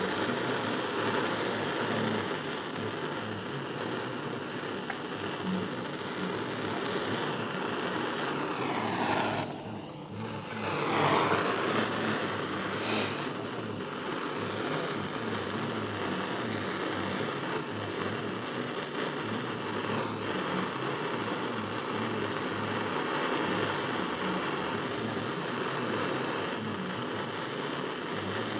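Gas soldering torch flame running with a steady hiss while it heats a silver piece for soldering. About ten seconds in the flame noise dips briefly, then comes back louder.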